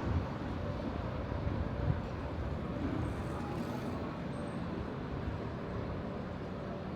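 Steady city street ambience: a constant rumble of road traffic.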